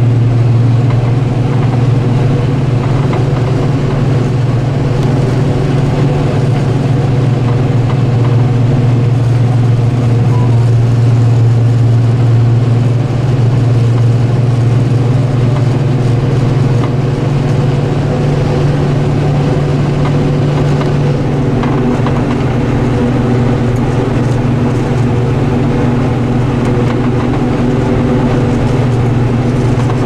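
Large farm machine's diesel engine running steadily during maize harvesting, a loud, continuous low drone.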